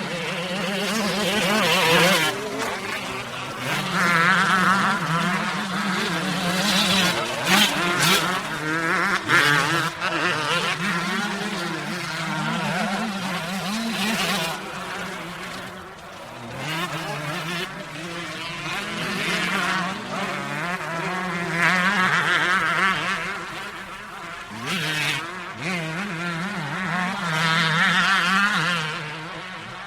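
Motocross motorcycle engine running hard off-road, its pitch rising and falling over and over as the throttle is opened and closed through repeated accelerations.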